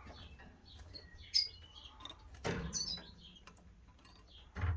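Canaries giving short, scattered chirps, with a sharp click about a second and a half in.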